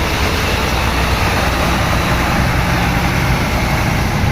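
Large bus's diesel engine running steadily, a low hum under even road-traffic noise.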